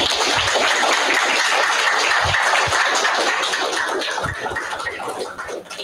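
Audience applauding: steady, dense clapping that tapers off near the end.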